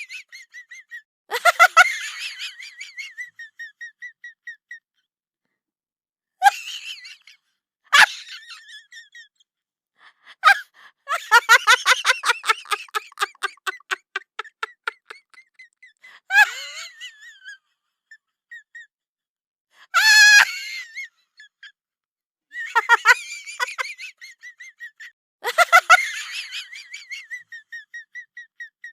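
Repeated bursts of high-pitched, laughter-like vocalising, each a quick run of pulses, with silent pauses between them.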